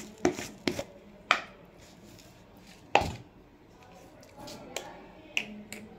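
Kitchenware being handled: about eight short, sharp knocks and clicks, unevenly spaced, the loudest about three seconds in.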